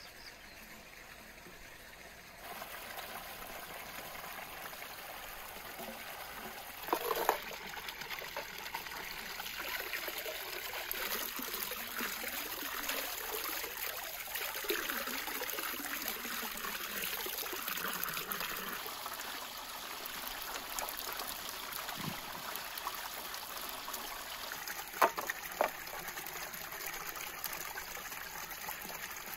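Water running and splashing into a stone basin as pieces of raw meat are rinsed by hand under the stream. A couple of short knocks sound about seven seconds in and again near the end.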